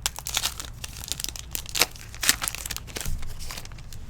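Crinkling and crackling of a trading-card pack wrapper being handled, a dense run of sharp crackles that dies down about three and a half seconds in.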